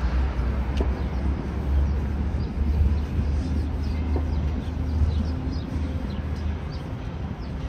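City street ambience: a steady low rumble of traffic, with faint bird chirps from about three seconds in.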